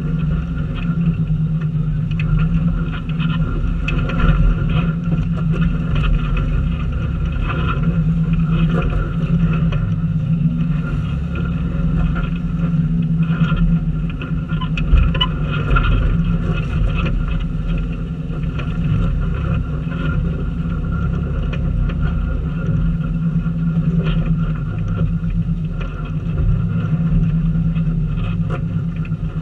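Off-road 4x4's engine running steadily at low speed while crawling over a rocky trail, a constant low rumble with scattered knocks and crunches from the tyres and body going over rocks.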